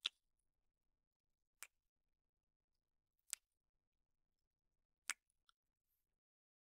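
Near silence broken by four short, sharp clicks spaced about a second and a half to two seconds apart, the first the loudest.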